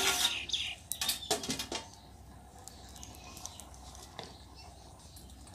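Metal ladle knocking and scraping inside a large steel cooking pot of rice, a few sharp clinks in the first two seconds, then only faint ticks.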